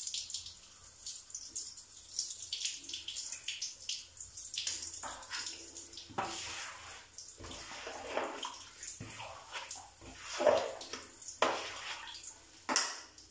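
Water spraying from a handheld shower onto a metal range-hood filter and the floor, rinsing the cleaner off, with uneven splashing and several louder bursts in the second half.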